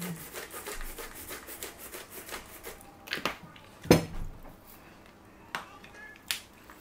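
A spice shaker shaken over a salad: a fast, dense rattle of small clicks for about three seconds. It is then set down on a wooden table with a couple of sharp knocks, the louder one about four seconds in, and a few light clicks follow.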